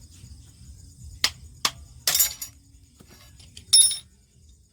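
Metal tools and parts clinking: two sharp taps, a short rattling clatter, then a loud ringing metallic clank near the end.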